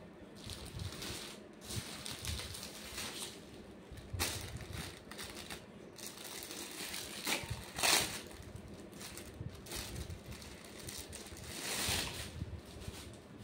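Clear plastic packaging crinkling and rustling as a folded suit is handled and unwrapped, in irregular bouts, with the loudest crinkles about two-thirds of the way through and again near the end.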